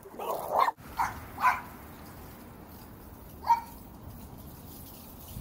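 A dog barking angrily: a quick run of short barks, then a single bark after a pause of about two seconds.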